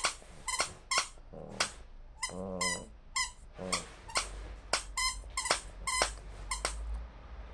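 A small dog chewing a plush squeaky toy, making it squeak over and over, about two short high squeaks a second, with a few low growls in between. The squeaking stops about seven seconds in.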